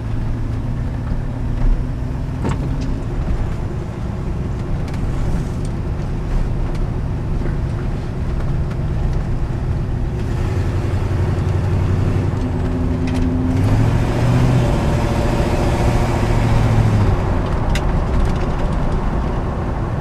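1966 Chevrolet Impala's engine, running on a newly fitted four-barrel carburetor, pulling the car along, heard from inside the cabin. The engine note grows stronger for a few seconds past the middle, then eases off.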